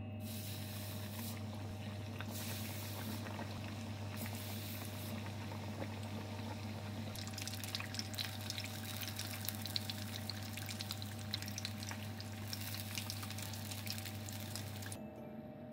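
Floured mackerel deep-frying in hot oil: a steady sizzle with many fine crackles, getting denser about halfway through, over a steady low hum. It all cuts off just before the end.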